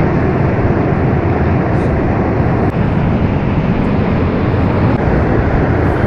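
Steady roar of a fast mountain river, whitewater rushing over rocks.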